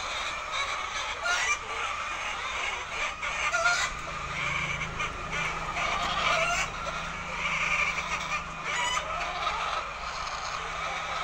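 A flock of hens clucking and calling all together, many short overlapping calls. A low steady hum runs beneath from about four seconds in.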